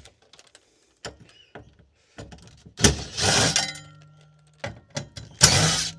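Scattered clicks and knocks, then two loud harsh rattling scrapes about two and a half seconds apart, each leaving a short ringing tone behind it.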